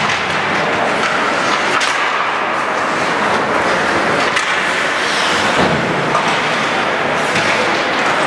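Ice hockey play on a rink: a steady scraping hiss of skate blades on the ice, with scattered sharp knocks.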